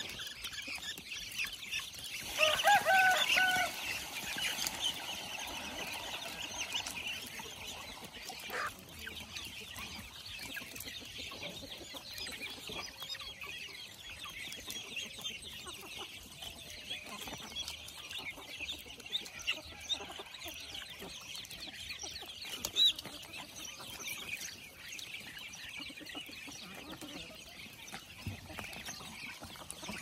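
A feeding flock of chickens, with a steady chatter of high chirps and clucks throughout and one louder call about three seconds in.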